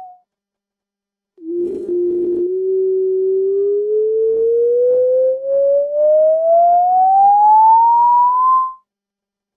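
Cartoon sound effect: a single pure, whistle-like tone that starts low about a second and a half in, holds briefly, then glides slowly and steadily upward for about six seconds before stopping abruptly.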